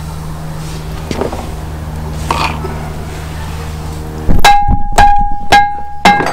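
A mallet striking the Unimog U3000's front brake rotor about four times in quick succession, starting about four seconds in, the steel disc ringing with a clear bell-like tone after each blow: the rotor is stuck on the hub and is being knocked loose. Before the blows there is only a steady low hum with a few soft clicks.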